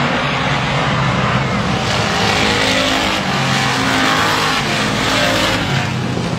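A pack of race cars running hard around the oval, their engines making a loud, steady, layered noise as the cars pass.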